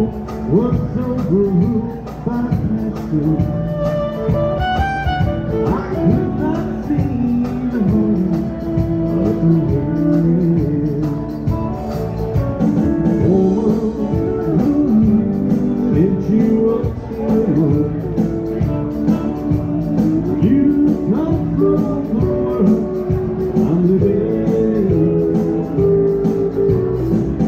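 Live country band playing an instrumental passage on pedal steel guitar, electric guitar, bass and drums, with the fiddle bowing at the start.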